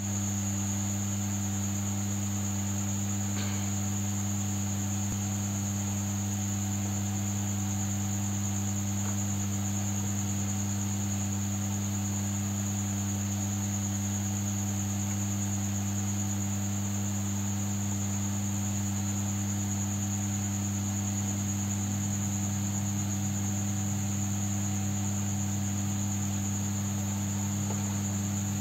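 Steady electrical hum, a low buzz with a fainter high-pitched whine above it, unchanging in pitch and level.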